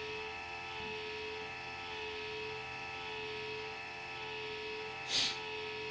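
Model railway turntable's drive motor running steadily as the bridge rotates, a steady whine with one strong tone and many fainter overtones above it. A brief soft hiss about five seconds in.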